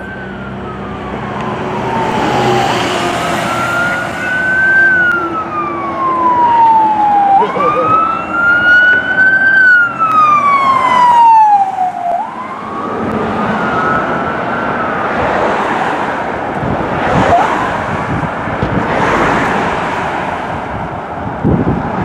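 Electronic siren on a Ford dually pickup fire truck sounding a slow wail, its pitch climbing and falling about every five seconds. After its second full sweep the pattern breaks up into a rougher, uneven wail. A low engine hum runs underneath.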